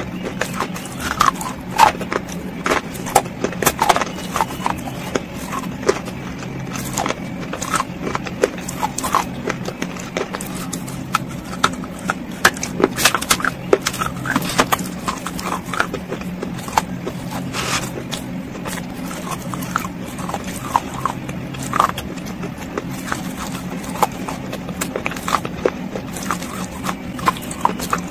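Close-miked crunching and chewing of baked clay pieces coated in wet paste: irregular sharp crunches and snaps, sometimes several in quick succession, over a steady low hum.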